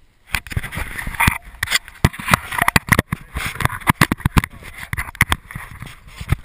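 Hand handling and adjusting a GoPro HD Hero camera right at its microphone: a dense, irregular run of knocks, rubs and scrapes on the housing.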